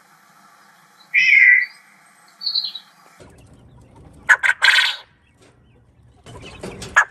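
Bird calls from two different recordings. First a loud call about a second in and a shorter, fainter one soon after. Then, after an abrupt change in background about three seconds in, two harsh, noisy bursts of calls with sharp clicks, one near the middle and one near the end.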